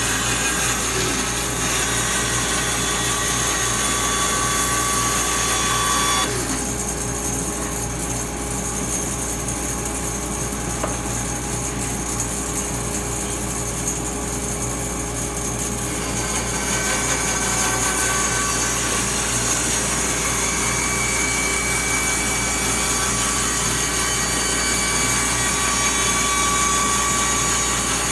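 Band saw running steadily and cutting wood. For about ten seconds in the middle the higher cutting noise falls away while the machine keeps running, then it picks up again.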